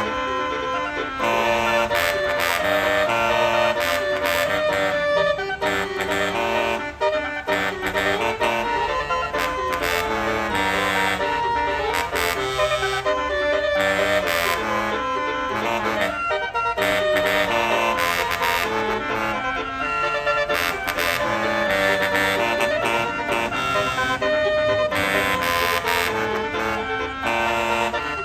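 Continuous music with a steady beat and a melody of sustained reedy tones.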